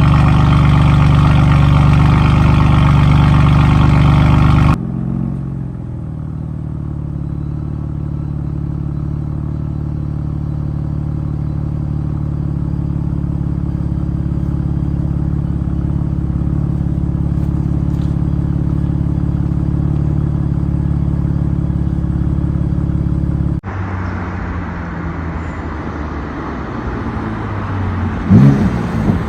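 BMW M3/M4's S55 twin-turbo inline-six running with its exhaust valves left open by the free unplugging mod. The exhaust is loud for the first few seconds, then cuts to a quieter steady drone, and changes again with a brief swell in pitch near the end.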